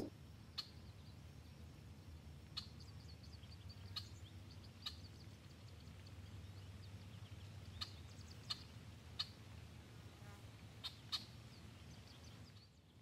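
Faint, sparse chirps of small birds, short sharp calls every second or so, over a low steady hum.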